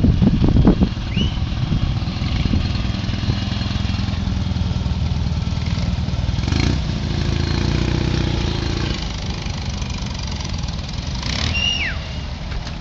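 A column of classic Fiat 500s driving slowly past, their small air-cooled two-cylinder engines running with a steady low rumble. There is a brief high chirp about a second in and another, falling in pitch, near the end.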